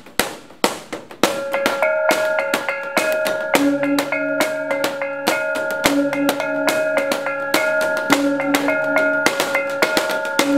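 Intro music: a drum beat with a repeating melody, a few scattered hits at first, then a steady beat, with lower bass notes joining about three and a half seconds in.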